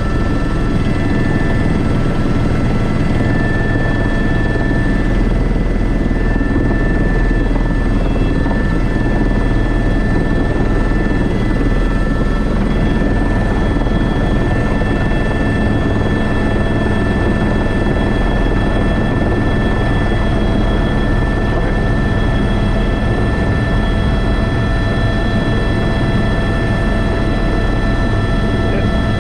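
Airbus H125 helicopter's turbine and main rotor running steadily, heard from inside the cockpit: a constant whine of several high tones over a low rotor drone.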